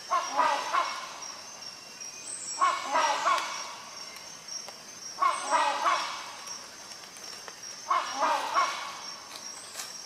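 Rhinoceros hornbill calling: four calls about two and a half seconds apart, each a quick run of several short notes lasting under a second.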